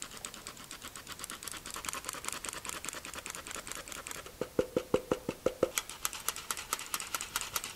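A hand-operated flour sifter being worked over a bowl, its mechanism clicking rapidly and evenly, several ticks a second, as flour sifts through. About halfway through, a run of louder clicks.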